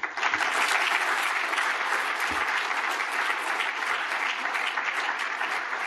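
A large audience clapping steadily.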